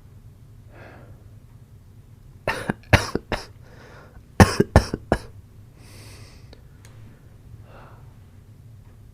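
A sick man coughing in two fits of about four quick coughs each, the first about two and a half seconds in and the second about two seconds later, with soft breathing between.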